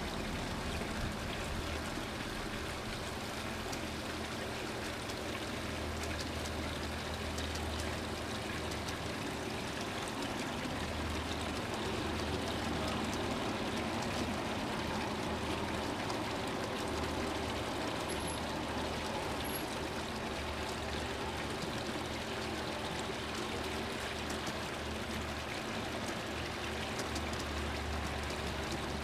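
G-scale model freight cars rolling along garden railway track, a steady rushing rumble of many wheels on the rails with an uneven low hum under it.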